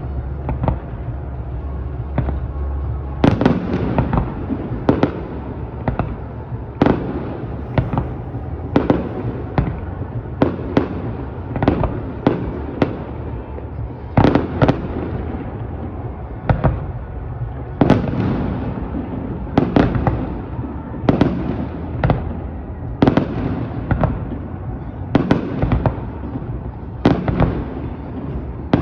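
Aerial firework shells bursting one after another: sharp booms every second or two, with a rumbling echo that carries on between them.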